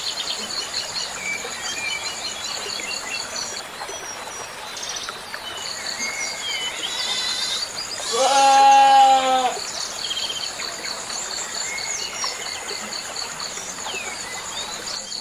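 A goat bleats once, loud and trembling, about eight seconds in, for about a second and a half. Behind it, insects trill steadily in high pulsing tones and birds chirp now and then.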